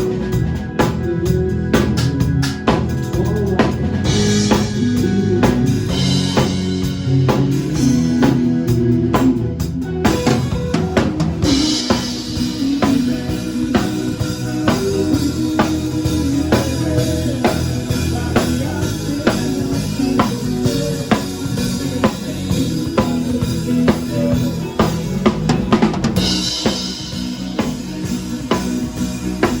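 A band playing live with the drum kit out front: a steady kick-and-snare beat with rimshots and cymbal crashes over bass and other pitched instruments, as in a sound check.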